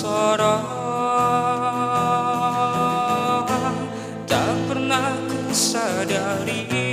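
A song with a singing voice over instrumental accompaniment. The voice holds long notes and slides between pitches in the second half.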